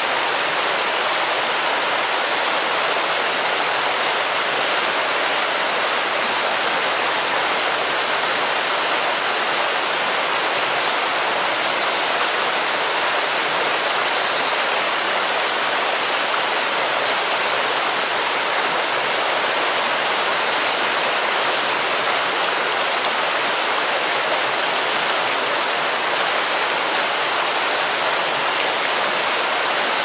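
River water flowing steadily over a shallow rocky riffle, a constant rushing hiss. A bird chirps briefly in short high bouts three times: a few seconds in, around the middle, and about two-thirds through.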